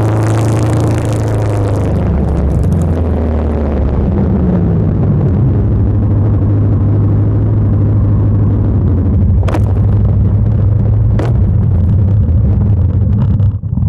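Motorcycle engine running steadily at low road speed, with wind rushing past for the first few seconds. Two sharp clicks come late on.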